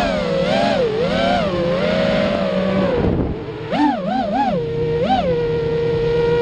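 Brushless motors and 5051 props of a 210-size FPV racing quad whining in flight, the pitch rising and falling with the throttle. It dips a little past the middle, gives three quick throttle blips, then one more, and settles into a steady whine.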